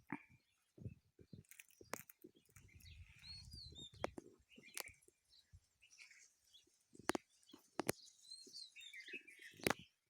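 Small birds chirping in short, repeated calls, mixed with scattered sharp clicks and knocks and a few low thuds.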